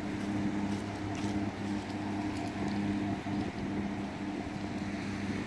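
Steady low engine drone from a red catamaran ferry motoring across the lake, heard over a hiss of wind and small waves on the pebble shore.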